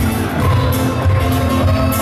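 Live band music amplified in a concert hall: a steady beat over heavy bass, with a few held melody notes.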